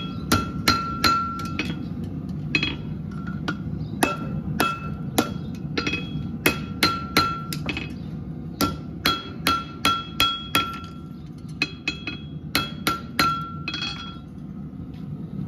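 Farrier's driving hammer striking horseshoe nails on a steel shoe set on a horse's hoof. Sharp metallic taps that ring briefly come in quick runs of several blows with short pauses, over a low steady hum. The taps stop near the end.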